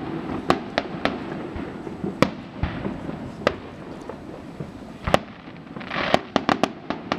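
Fireworks display: shells bursting in sharp bangs at uneven intervals, with a crackling burst and a quick run of pops about six seconds in.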